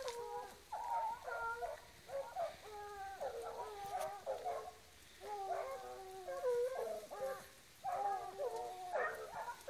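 A pack of hunting dogs baying, several drawn-out voices overlapping in bouts of a second or two with short pauses between.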